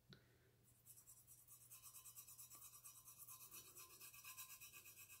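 Fingertip rubbing paint back and forth over a stainless steel tumbler: a faint, rapid scrubbing of about six strokes a second, starting about a second in.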